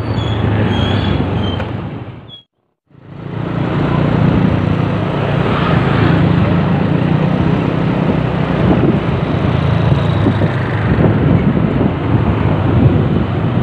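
Motorcycle engine running steadily while riding slowly, heard from the saddle, with road and wind noise over it. The sound cuts out completely for about half a second a little over two seconds in, then carries on.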